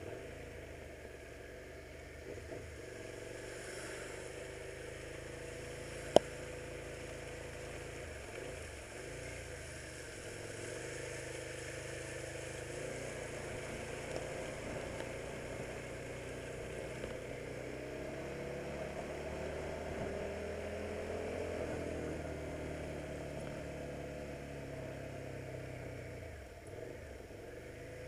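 Suzuki SV650's V-twin engine running at low road speed, its pitch slowly rising and falling as the bike speeds up and slows, over a steady hiss of tyres on a wet road. A single sharp click about six seconds in.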